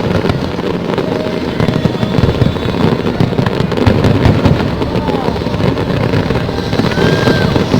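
Fireworks display going off in a dense, continuous barrage of bangs and crackles, with a few short whistling tones from about five seconds in.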